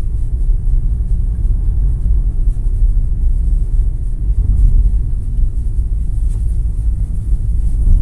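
Steady low rumble of a car in motion, heard from inside the cabin: engine and tyre noise with no clear changes.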